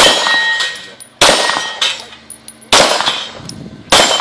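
Four handgun shots about a second and a half apart, each fading away, with the ring of steel plate targets being hit after some of them.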